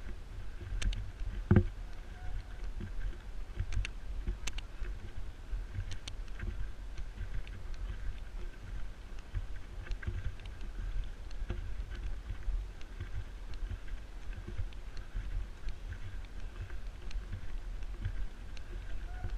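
Low, uneven rumble of wind and handling noise on a camera carried by a running man, pulsing with his strides, with one sharp knock about one and a half seconds in.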